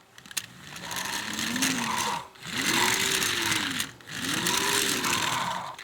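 Small plastic gears in a Trackmaster Shooting Star Gordon toy flag wagon whirring as the wagon is rolled, spinning its racing flags. There are three strokes, each rising in pitch and then falling away.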